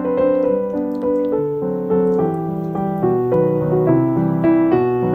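Background instrumental waltz with piano, a melody moving note by note over a steady accompaniment.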